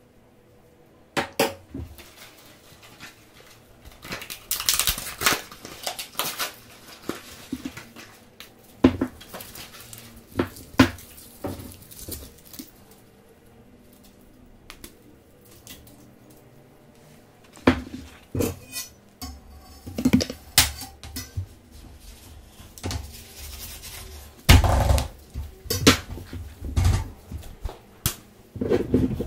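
Intermittent close-up handling sounds of crepe-making on a griddle: sharp taps and knocks of utensils, short bursts of rustling and scraping, with quiet gaps between. The heaviest, loudest knocks come near the end.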